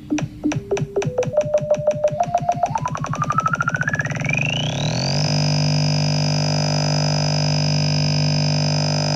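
Synthesized stereo waveforms (sawtooth and sine signals) that drive an oscilloscope's X-Y display, heard directly as sound. A repeating click speeds up into a continuous buzz while a tone steps up in pitch and then glides up to a high whistle; about five seconds in it settles into a steady buzzy drone with the high whistle held on top.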